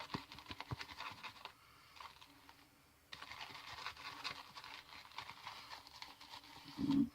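Shaving brush whipping shave soap into lather in a smooth-sided bowl: a rapid wet scratching and clicking, pausing for about a second and a half before it starts again.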